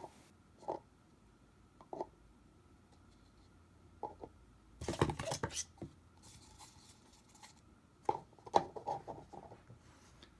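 Red Speed Stacks plastic sport-stacking cups being set down and placed onto a pyramid, giving short separate clacks, with a quick flurry of clacks about five seconds in and another around eight to nine seconds.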